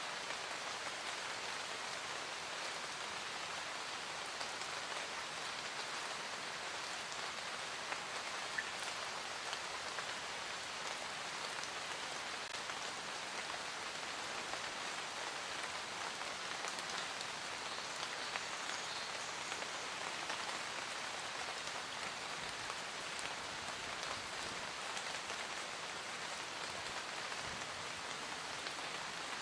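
Steady rain falling on a surface, an even patter with scattered individual drop ticks and no change in intensity.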